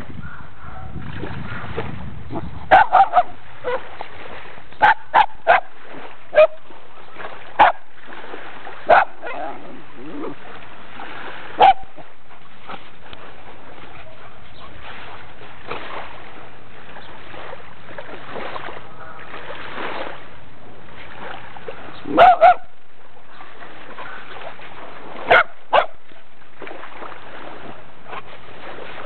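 Brazilian terrier (fox paulistinha) barking and yipping in short, sharp calls, excited over a crab it is playing with. The calls come in scattered ones and twos with a long pause in the middle, over a steady background hiss.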